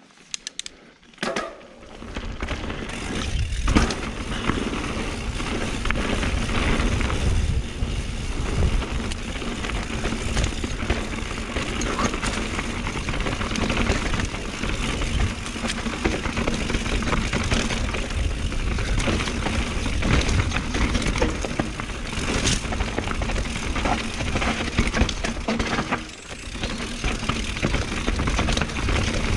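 Mountain bike descending a rough dirt trail: a steady rush of tyre and wind noise on the bike-mounted camera, full of rattling, clicks and knocks from the bike over rocks and roots. It starts quiet and becomes loud within the first two seconds.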